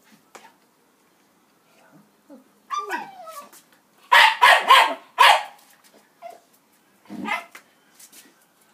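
Dog giving a falling whine, then four sharp barks in quick succession, and one more bark a couple of seconds later.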